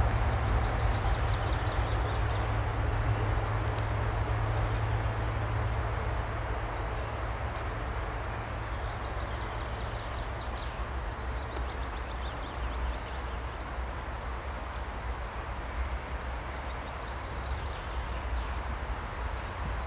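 Diesel shunting locomotive running light, its engine a steady low hum that fades gradually as it draws away.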